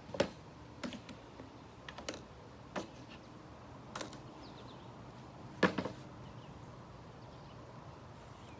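A handful of separate knocks and clicks, the loudest just after the start and about two-thirds of the way through: workshop handling of the jigsaw and wood pieces between cuts, with the saw not running.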